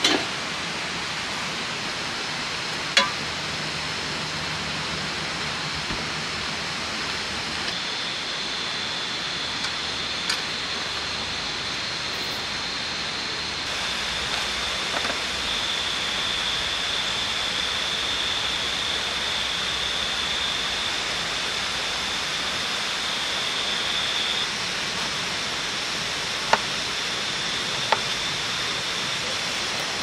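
Steady rushing of water. A thin, high, steady tone sits over it and shifts in pitch a few times. A few short, sharp clicks are heard.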